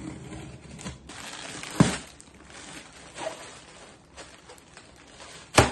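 Unboxing noise: a box cutter slitting a cardboard box open, then cardboard flaps and plastic air-cushion packing rustling as they are handled. Sharp knocks come about two seconds in and, louder, near the end.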